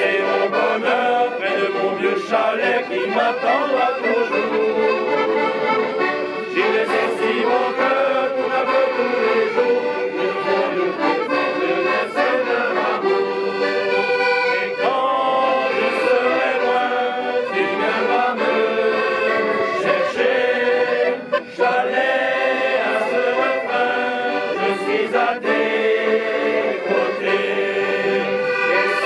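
A mixed group of men's and women's voices singing a traditional folk song together, accompanied by two accordions. There is a brief break about two-thirds of the way through.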